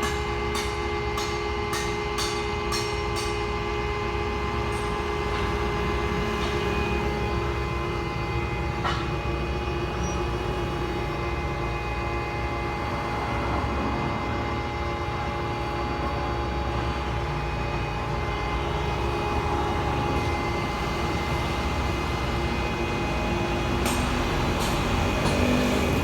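Okuma radial drilling machine running steadily, a gearbox hum with several steady whining tones; a quick run of sharp clicks in the first few seconds and a few more near the end.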